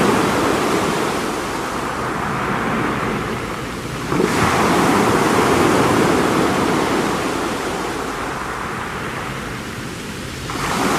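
Sea waves washing onto a rocky shore: a new wave rolls in about four seconds in and another near the end, each dying away slowly.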